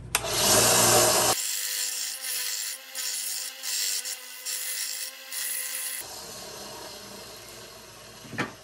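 Small bench belt sander grinding a flux-core weld bead flush on a steel bicycle frame tube, the grinding swelling and easing as the tube is worked against the belt. The sound fades over the last couple of seconds.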